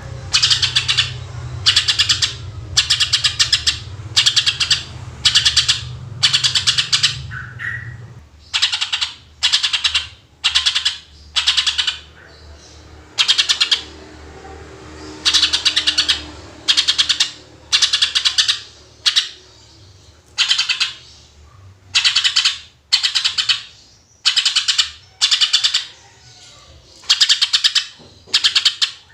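Greater green leafbird (cucak ijo) singing a series of loud, short, fast-trilled bursts, about one a second with a few brief pauses: the rapid-fire song that bird keepers call "tembakan".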